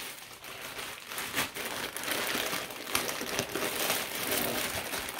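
Clear plastic packaging bag crinkling as it is handled and pulled open. The crinkling grows busier and louder from about two seconds in.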